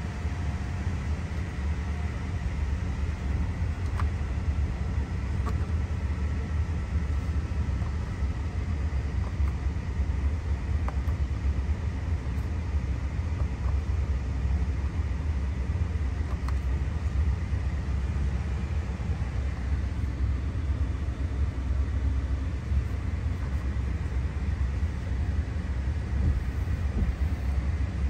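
Steady low rumble of the 2018 Ford F-150's 5.0L V8 idling, heard from inside the cab, with a few faint clicks along the way.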